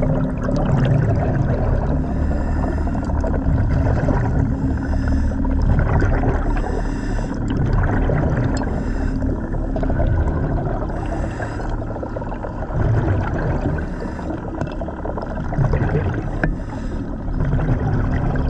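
Commercial diver's breathing underwater: regulator hiss on each breath and rumbling exhaust bubbles over a steady low drone, a breath every two seconds or so.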